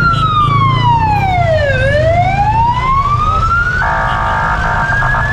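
Emergency vehicle siren in a slow wail: the pitch glides down, climbs slowly back up, then starts to fall again near the end. A horn sounds for about a second past the middle, over the steady rumble of traffic.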